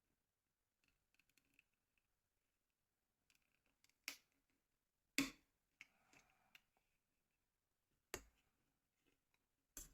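Three sharp clicks and taps of small plastic phone parts being handled and fitted during reassembly of a Nokia 3650's shell, with faint rustling between them; otherwise near silence.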